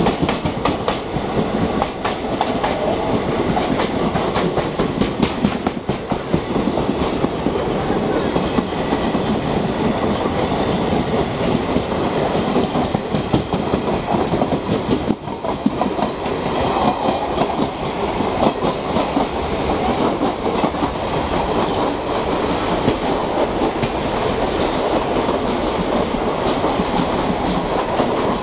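Two passenger trains passing each other at speed on adjacent tracks: a steady rumble of running trains with a rapid clickety-clack of wheels over rail joints.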